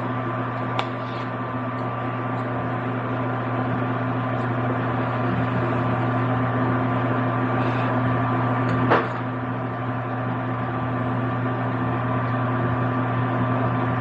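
Steady electric hum of a running kitchen appliance motor or fan, with a couple of light clicks, the clearest about nine seconds in.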